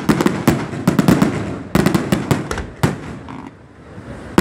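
Fireworks display: a rapid, irregular string of bangs and pops from bursting shells, thinning to a brief lull about three seconds in.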